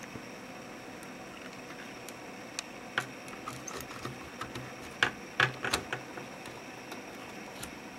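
Clicks and knocks of hands handling a disassembled laptop's motherboard and plastic chassis, a scattered run of sharp taps loudest about five seconds in.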